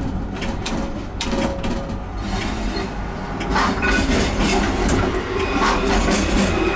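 Electric street tram running on the rails, its wheels clicking over the track joints, with a steady low rumble and a thin whine that comes in about three and a half seconds in.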